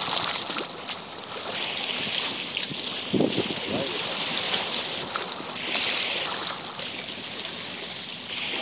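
Sea water sloshing and lapping against a boat, a steady wash of noise with wind on the microphone. A brief low sound breaks through about three seconds in.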